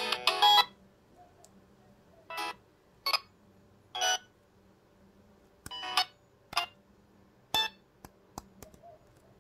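A Samsung SGH-T349 phone's ringtone ends about half a second in. It is followed by about seven short electronic key beeps at irregular gaps and a few faint key clicks, as the phone's buttons are pressed between ringtones.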